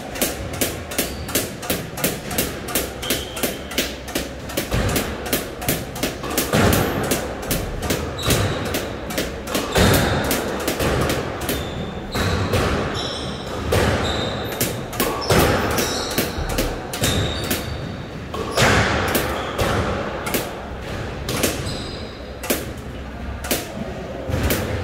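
Squash ball being played: racket strikes and the ball smacking the walls and wooden floor in a steady run of sharp knocks, about two or three a second, with short high squeaks of court shoes among them.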